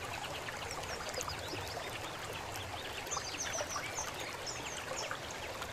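Steady sound of running water, like a stream, with many short high chirps scattered over it.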